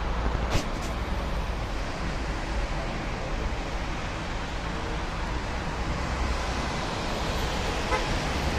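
Steady rushing roar of a jet airliner taking off, blended with road traffic. A sharp click comes about half a second in.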